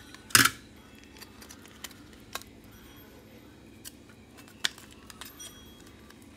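Plastic casing of an old computer mouse being handled after its top shell is taken off: one sharp plastic click about half a second in, then a few faint clicks and taps.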